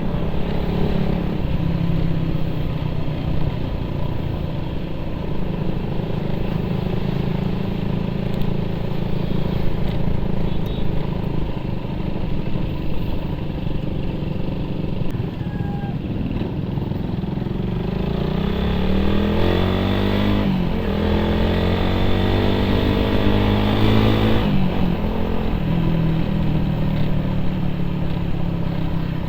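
Motorcycle engine running while riding, then accelerating with a rising pitch about two-thirds of the way in, with two gear changes breaking the rise before it settles back to a steady run.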